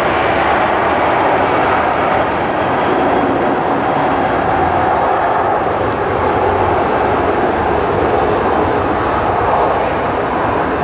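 Jet engines of an Airbus A320-family airliner moving on the runway, a steady loud rushing noise with no breaks.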